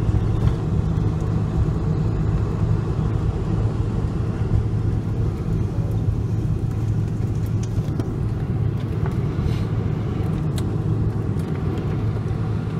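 Steady low rumble inside a moving vehicle, with a few faint ticks.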